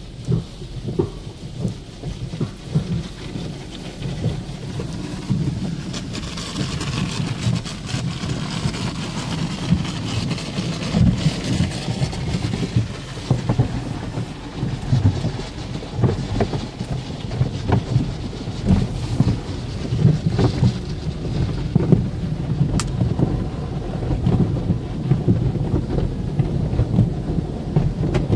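Car wash running: a steady low rumble with irregular thumps on the car, joined about six seconds in by a hiss of water spray.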